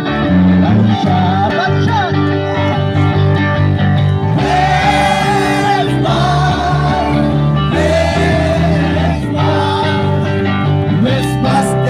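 Live Christmas carol: several voices singing together over strummed guitar and bass guitar, with the sung lines held in long notes from about four seconds in.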